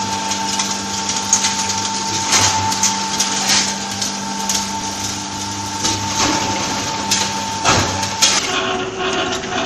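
Electric-motor-driven clay crusher running with a steady whine and hum, with irregular knocks and rattles as lumps of clay soil are shovelled in and broken up. Its tone changes near the end.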